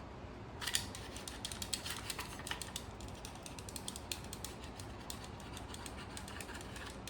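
Many quick, irregular small metal clicks and scrapes as an internal part is pushed and worked into seat inside a 1958 Daisy Red Ryder Model 94 BB gun, starting about a second in.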